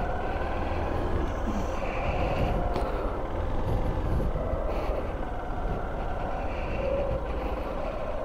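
A 125 cc Honda motorcycle's engine running at low, fairly steady revs as the bike is ridden through a slow U-turn.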